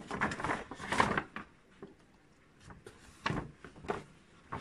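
Shopping bag hanging from a steel spring being handled as another kilogram of weight is put into it: a cluster of rustles and knocks at first, then two sharper knocks later.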